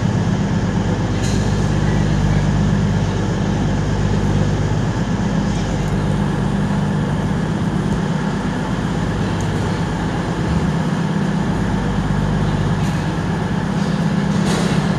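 A train standing in the station hums steadily and loudly, most likely the LNER Azuma stopped at the platform. The hum is a low drone of several steady tones over a constant hiss and eases slightly about halfway through. Another train pulling out further along the station adds to the rumble.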